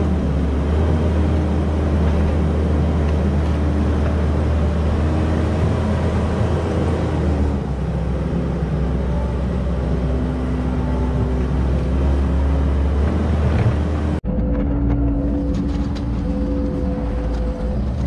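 Skid steer loader engine running steadily under work, a loud low drone with a steady pitched hum over it. The engine sound changes abruptly about fourteen seconds in and then carries on.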